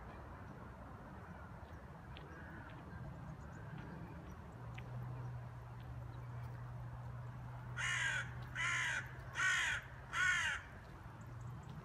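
A crow cawing four times in quick succession, each caw short and harsh, about two-thirds of the way in.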